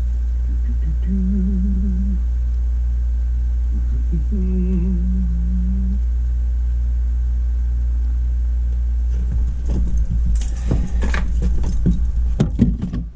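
A person humming briefly, twice, over a steady, loud low hum. Near the end come a run of clicks and rustling handling noises.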